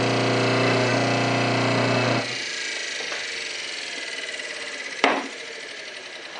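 Old GE AC washing-machine motor running with a steady electric hum, then switched off about two seconds in and coasting down with a slowly falling whine. A single sharp clack comes about five seconds in.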